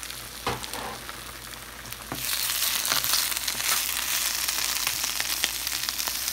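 Food frying in a pan on the stove, a steady crackling sizzle. A knock sounds about half a second in, and the sizzle gets louder from about two seconds on.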